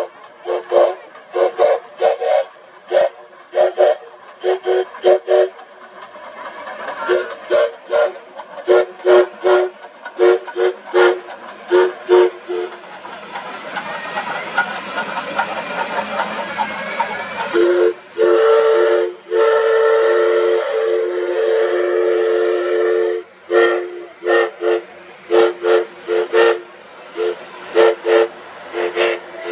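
Steam whistle of the DT668 steam locomotive, a two-note chord sounded in a long run of short toots, then one long held blast about halfway through, then more short toots, over steady steam hiss from the passing engine.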